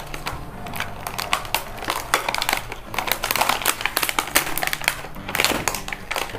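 Product packaging being torn open by hand: a glossy printed box and its clear plastic film crinkling, with a run of irregular crackles and rustles.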